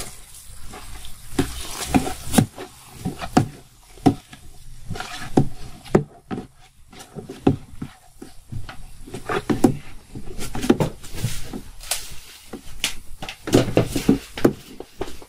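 A hand stirring and squeezing crushed red grapes fermenting in a plastic tub: irregular wet squelching and clicking sounds, thickest near the end.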